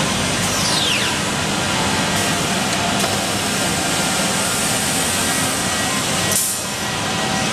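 CNC wood router machining centre running, its spindle machining a wood panel: a loud, steady machining noise, with a falling whine about half a second in and a brief hiss about six and a half seconds in.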